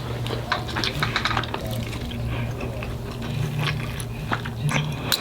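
Close-miked chewing of a burrito: a steady run of small wet mouth clicks and smacks.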